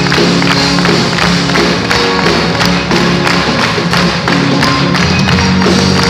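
Live band playing an instrumental passage, with double bass, cello, drums and guitar. A steady beat of sharp strikes runs under sustained notes.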